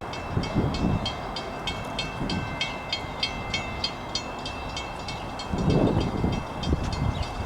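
Railroad sounds at a station: a steady rhythm of short, high, ringing ticks about three a second, with wind gusting on the microphone.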